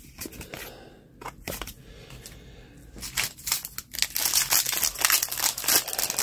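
Pokémon TCG Evolving Skies foil booster pack crinkling and tearing as it is opened, starting about three seconds in after a few light clicks of cards being handled.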